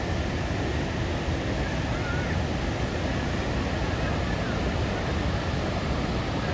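Steady rushing roar of Niagara Falls, an even noise heaviest in the low end.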